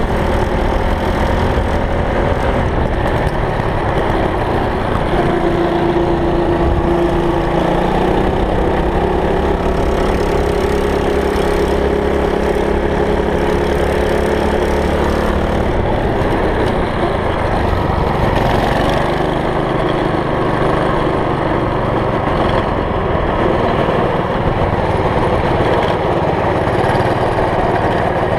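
Small single-cylinder petrol engines of a go-kart and mini bike running on the move, the engine note shifting up and down in pitch with the throttle.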